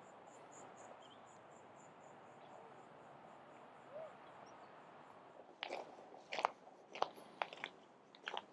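Faint insect chirping, a high pulse about four times a second, fades out over the first few seconds against a soft outdoor hiss. From a little past halfway, footsteps crunch irregularly.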